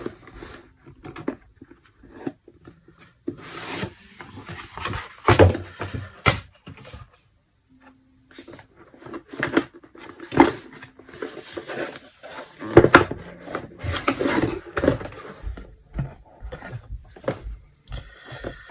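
A sealed product box being opened and unpacked by hand: irregular rustling, scraping and knocks in uneven bursts, with a short pause about halfway.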